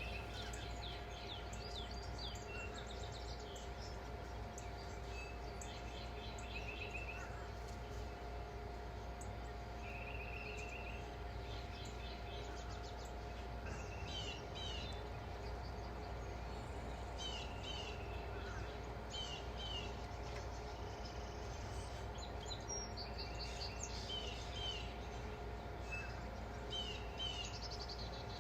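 Small birds chirping, with short calls and brief trills every second or two, over a faint steady hum.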